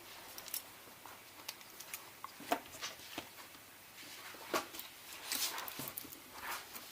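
Scattered light clicks, taps and brief rustles from small parts and tape being handled while a first-generation iPod Nano is put back together, with the sharpest taps about half a second, two and a half and four and a half seconds in.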